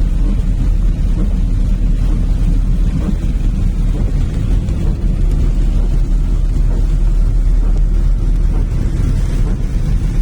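Steady rainfall heard as a dense, even low rumble, with no separate drops standing out.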